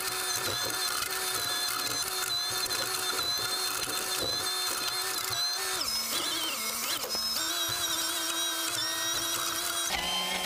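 JCB 3DX backhoe loader's engine and hydraulics running, heard from the operator's cab as a steady mechanical whine. Its pitch dips for about a second a little past the middle, then settles again.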